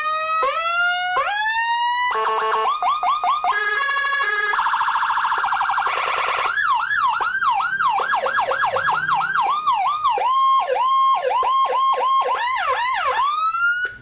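Custom Whelen HHS-style 60-watt electronic police siren sounding through a horn loudspeaker, switching between several of its 24 tones. A few rising whoops come first, then fast stepped warbles and a rapid yelp, then repeated rising-and-falling sweeps and short chirps.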